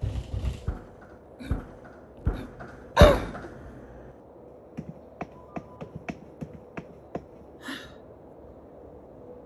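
Fist thumps against a vending machine, made as Foley: several knocks in the first three seconds with the heaviest about three seconds in. A quick run of light clicks and taps follows, with a short breathy huff near the end.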